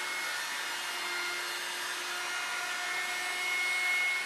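Festool handheld router with a chamfer bit, cutting along the edge of a cherry tabletop, with an attached dust extractor running: a steady high motor whine over the rush of air, getting a little louder shortly before the end.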